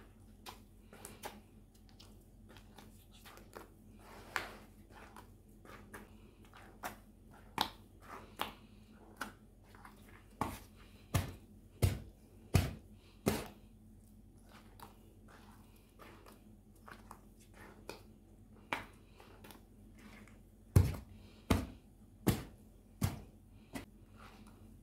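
Kitchen work on bazlama dough: scattered taps and clicks, with two runs of about four heavier thumps, one in the middle and one near the end.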